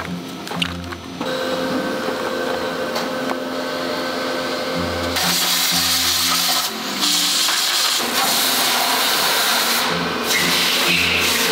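Factory machinery running: a steady low hum with a hiss over it, its mix changing abruptly every few seconds.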